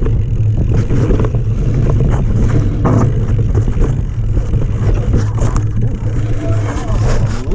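A mountain bike descending a dirt trail at speed: a heavy steady rumble of wind buffeting the action camera's microphone and tyres on the ground, with frequent short clicks and rattles from the bike over the rough trail.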